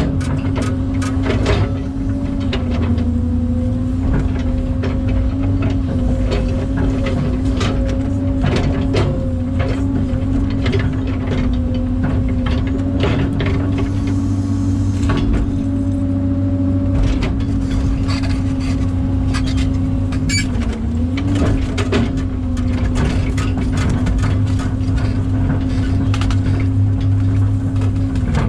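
Excavator's diesel engine and hydraulics running steadily under load, with a held hum that dips briefly now and then and frequent short knocks and clicks throughout.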